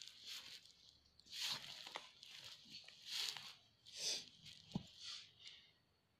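Hand working crumbly maida flour dough in a bowl, a faint scrunching and rustling as the damp flour is rubbed and pressed together in uneven strokes about once a second.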